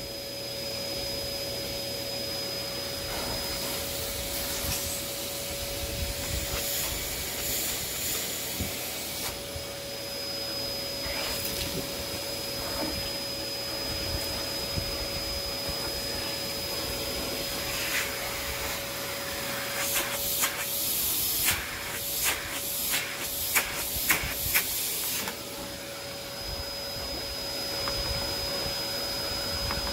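Hard plastic clicks and rattles, a quick run of them about twenty seconds in, as a Bissell PowerForce Compact vacuum's hose is twisted counterclockwise and worked loose from the vacuum body. Under them runs a steady hum and hiss with a faint high whine.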